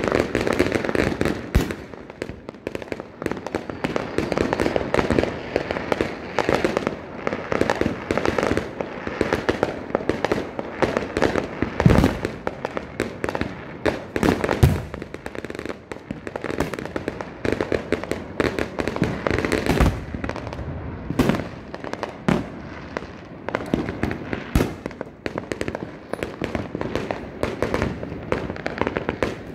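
Many fireworks going off at once: a constant crackle and popping of firecrackers, with louder bangs every few seconds.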